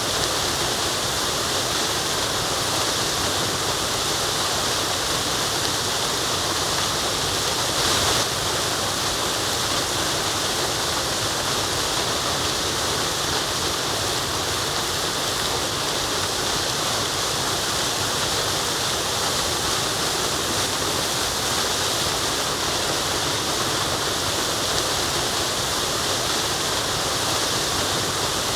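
Waterfall: water falling and rushing in a steady, dense hiss, strongest in the upper range, with a brief louder surge about eight seconds in.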